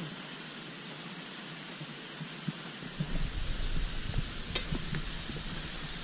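Steady rushing noise of a waterfall. From about halfway through, low rumbling and a few light knocks join it, with one sharp click near the end.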